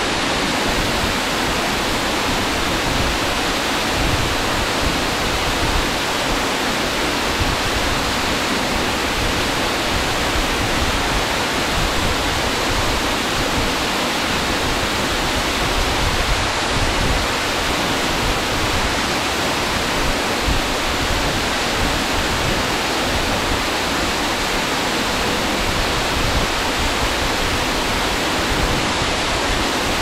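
Waterfall pouring, a loud, steady, even rush of falling water.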